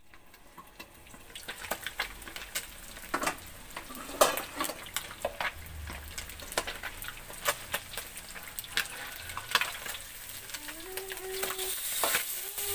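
Catfish deep-frying in hot oil in a steel wok: continuous sizzling with frequent sharp pops and crackles of spitting oil.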